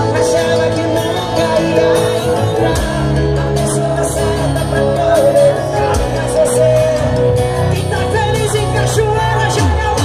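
Live band music with a lead singer, guitars and drums, picked up loud from within the crowd by a phone microphone.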